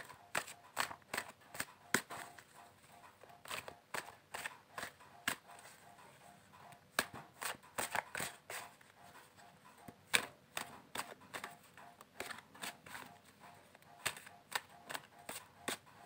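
Deck of Osho Zen Tarot cards being shuffled by hand: a long run of irregular, sharp card snaps and clicks, coming in clusters.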